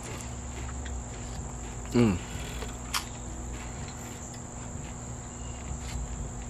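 Steady, high-pitched drone of insects. About two seconds in there is one short falling voice sound, and a few light clicks.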